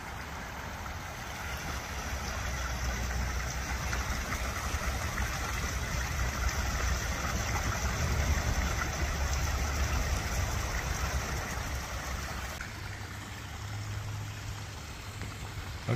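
Gusting wind buffeting the microphone and rushing through the trees: a rough rumble that builds for several seconds, peaks about halfway through, and eases off.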